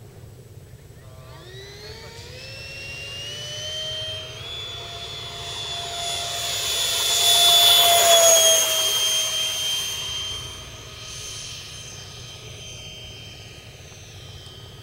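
Electric ducted fan of a T-45 model jet (68 mm metal fan driven by a 4000 kV outrunner on a 3S LiPo) spooling up about a second in with a rising whine. It then holds a high whine that grows loud as the jet runs past on its takeoff roll, drops slightly in pitch as it passes, and fades as the jet climbs away.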